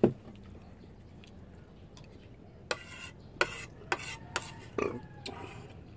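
A metal cooking pot is set down on the table with a single knock. A couple of seconds later a spoon clinks and scrapes against a plate about five times in quick succession as someone eats.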